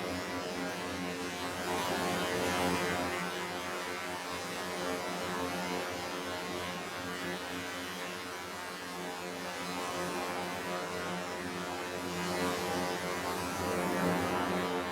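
Synthetic 'alien' sound effect: a steady electronic humming drone of many evenly spaced tones with a hissing layer over it, swelling slightly about two seconds in and again near the end.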